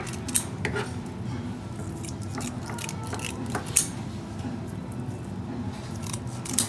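Kitchen fish shears snipping through a saithe's fins: a few sharp, separate snips, one near the start, one mid-way and one near the end, over a steady low background.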